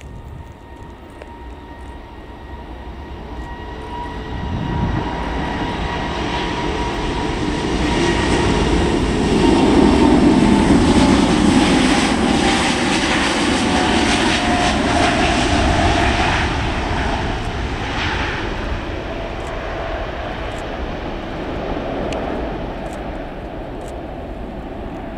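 Airbus A350-900 jet airliner's Rolls-Royce Trent XWB turbofans at takeoff power as it rolls past down the runway and climbs away. The roar builds to its loudest about ten seconds in, with an engine whine that slides down in pitch as the aircraft passes, then eases off as it climbs out.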